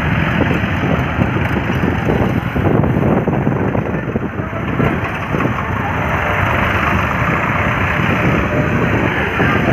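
Steady, loud traffic noise from a column of diesel farm tractors and motorcycles running along a road.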